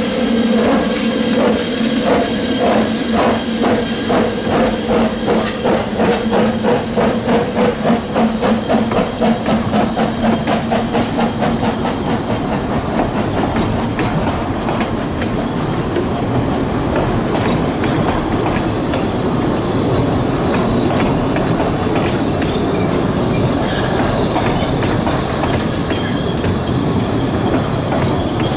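Fairlie steam locomotive pulling away from the platform, its exhaust chuffing in a quickening beat over a steady low tone. After about twelve seconds the chuffs fade into the steady rumble and clickety-clack of narrow-gauge carriages rolling past.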